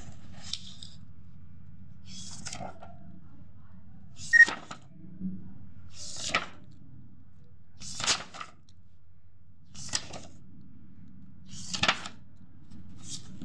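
Sheets of drawing paper rustling and flapping as they are handled and turned over, about every two seconds, over a low steady hum. The sharpest rustle comes about four seconds in.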